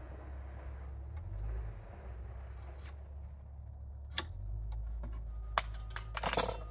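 A few sharp clicks and knocks of wood and hand tools being handled on a workbench, the loudest a quick cluster near the end, over a low steady hum.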